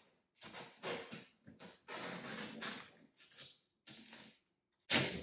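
Packing tape being pulled off its roll and pressed around a cardboard display base, heard as a run of short noisy strips with one longer pull about two seconds in.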